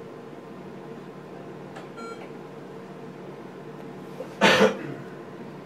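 Ultrasound scanner humming steadily, with one short electronic beep about two seconds in. About four and a half seconds in, a brief loud burst of noise cuts across it.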